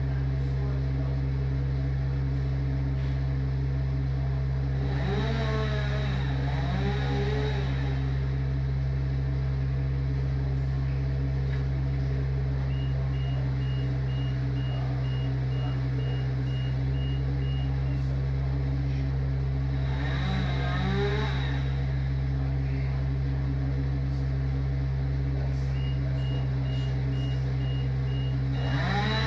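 A steady low engine drone with a rapid, high-pitched beeping that comes in twice, once midway and again near the end. Three times, a pitched sound rises and falls for a couple of seconds over the drone.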